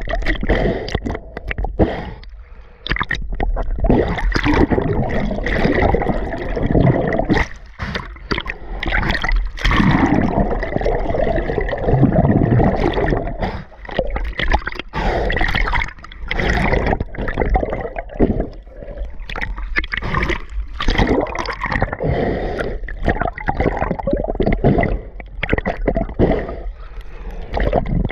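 Muffled underwater gurgling and bubbling from water and air bubbles churning around a submerged camera, uneven and loud, with dips and surges as a swimmer plunges in.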